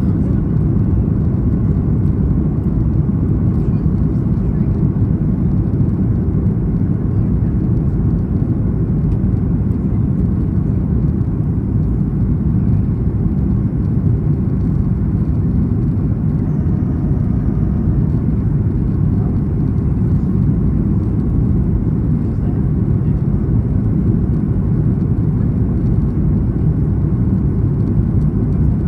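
Steady cabin noise of a Boeing 737 MAX 8 in flight, heard from a window seat: an even, deep rush of airflow and CFM LEAP-1B engine noise with no change in level.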